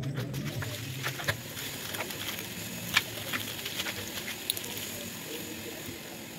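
Steady background hiss with a low hum in the first second or so and a few light, sharp clicks, as of small objects being handled.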